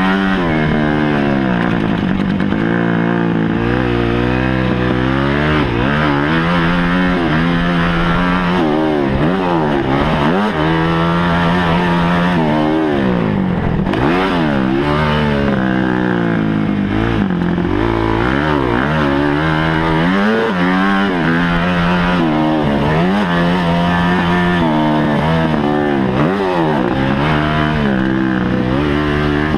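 Kawasaki KX250F motocross bike's single-cylinder four-stroke engine, heard close up from on board, revving up and falling back again and again as the rider works the throttle and gears along the track.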